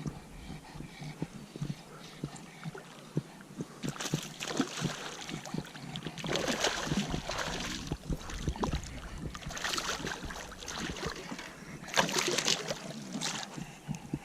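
Kayak paddle strokes splashing through the water, four strokes a few seconds apart beginning about four seconds in, with small knocks and drips between them.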